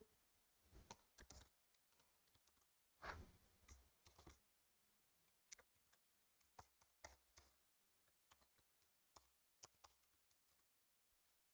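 Faint typing on a computer keyboard: scattered, irregular keystrokes, some in quick runs, with short pauses between them.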